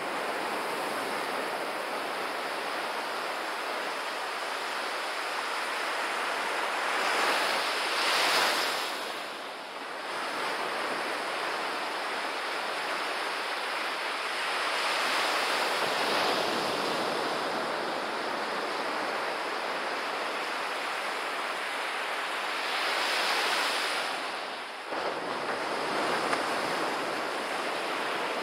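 Surf breaking and washing up a sandy beach: a steady rush that swells louder as each wave breaks, about every seven or eight seconds.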